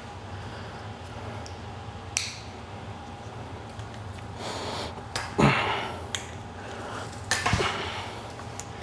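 Handling noise from a new push broom being unpacked: a few sharp knocks and clatters, the loudest about halfway through, with short rustles between them over a faint steady hum.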